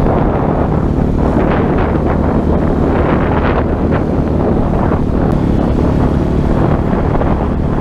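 Outboard motor running steadily, driving a small inflatable boat across open water, with wind noise on the microphone and water splashing against the hull.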